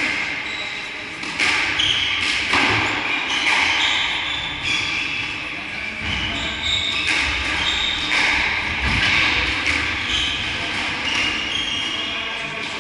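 Squash rally: the ball cracking off rackets and the walls about once a second, with rubber-soled shoes squeaking on the wooden court floor between the shots.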